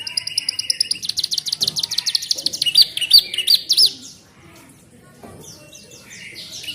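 Domestic canary singing a fast trill of rapidly repeated high notes that ends in a few looping whistled notes, a song filled with phrases learned from a hill prinia (ciblek gunung) tutor recording. It falls quiet about four seconds in and starts again near the end.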